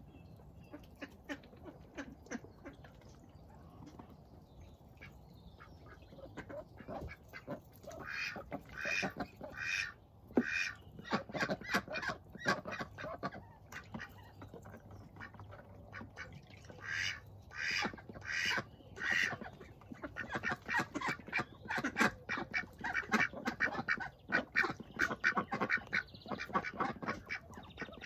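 Indian Runner ducks quacking. The quacks come in loud bouts from about eight seconds in, turning into a long run of quick quacks in the last third.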